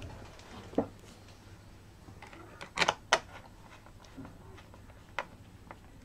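A handful of light, sharp clicks and taps from a small screwdriver and screws being handled against a laptop's plastic underside, the loudest pair about three seconds in.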